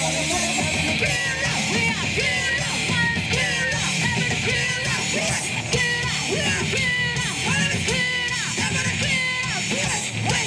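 Live rock band playing with distorted electric guitars, bass and drums, the singer yelling and singing short repeated phrases over them.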